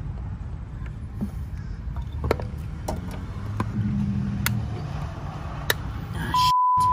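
Sharp clicks and taps of a rubber coolant hose and its spring clamp being worked onto a plastic coolant reservoir, over a steady low rumble. Near the end, a loud steady beep cuts in: a censor bleep.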